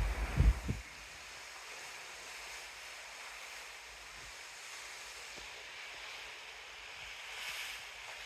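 Wind buffets the microphone with a few low thumps in the first second. After that there is a steady rush of open sea and wind.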